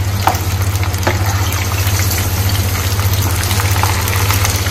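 Cornflour-coated potato fries deep-frying in very hot oil, a dense steady sizzle and crackle of bubbling oil. A slotted spoon stirs them, with a couple of soft knocks about a second in. A steady low hum runs underneath.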